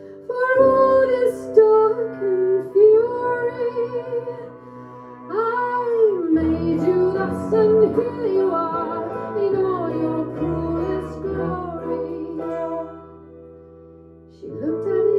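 A woman singing a song live over sustained instrumental chords, with two short lulls where the voice drops out.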